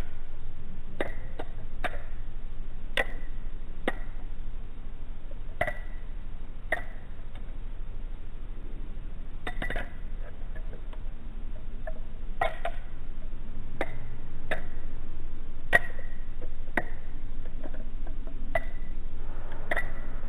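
Balisong (butterfly knife) being flipped through rollovers, its metal handles clacking together: irregular sharp metallic clicks with a brief ring, some fifteen of them at uneven gaps of about half a second to two seconds, over a steady low background hiss.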